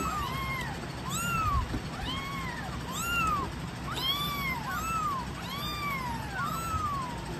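Young kitten mewing over and over, thin high cries that each rise and fall in pitch, one to two a second.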